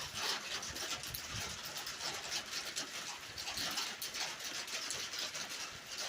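Rain pattering on a tin roof: a steady hiss of drops with many small ticks of individual drops striking the metal.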